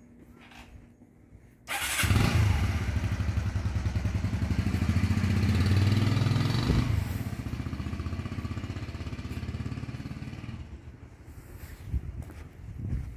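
Motorbike engine starting abruptly about two seconds in and running loudly close by for several seconds, then fading as the bike rides off.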